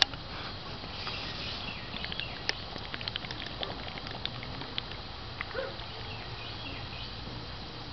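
A person chugging beer from an aluminium can: gulping and swallowing, with a run of small clicks over a faint outdoor hiss, most of them between about two and five seconds in.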